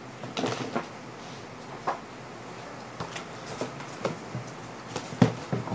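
Scattered handling noises from someone moving about and handling things: light taps and rustles, with two sharper knocks near the end.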